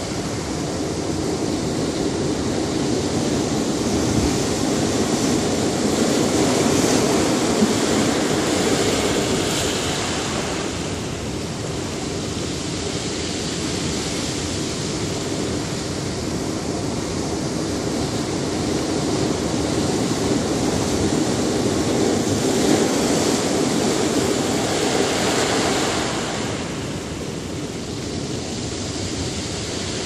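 Ocean surf breaking and washing over a rocky shoreline: a continuous rush of water that swells up twice and eases off between the surges.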